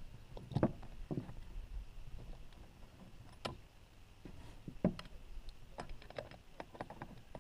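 Irregular clicks and knocks of metal parts being handled as a bicycle saddle is worked loose from its seatpost clamp, with the sharpest clicks about half a second, three and a half seconds and five seconds in.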